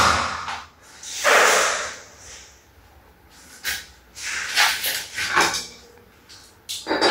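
Hand work on a door's bored lock hole: a scrape lasting about a second, then a few shorter scrapes and rubs with one sharp knock.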